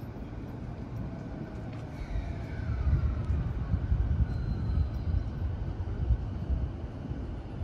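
JR East E233 series electric train pulling into the station. A low rumble from the running gear grows louder about halfway through, while the motor whine falls steadily in pitch as the train brakes.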